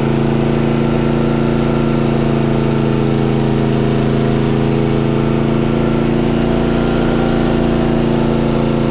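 Westinghouse iGen 4500 DF dual-fuel inverter generator running steadily on propane from a cylinder, a constant engine hum that holds one pitch throughout.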